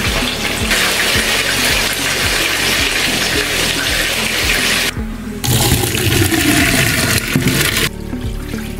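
Hot cooking water rushing and splashing into a stainless steel sink as a pot of boiled rape greens is drained through a plastic colander, with a short break about five seconds in.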